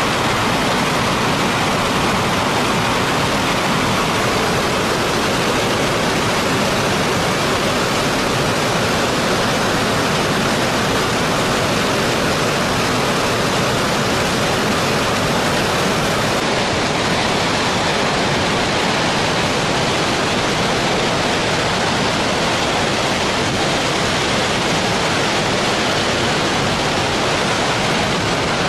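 Water discharging at very high speed from a dam's spillway outlets: a steady, dense rush of water noise with no let-up.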